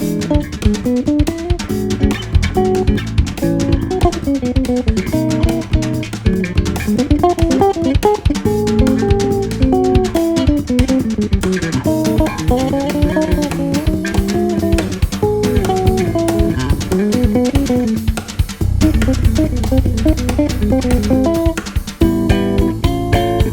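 Background music: guitar over bass and a drum kit with a steady beat.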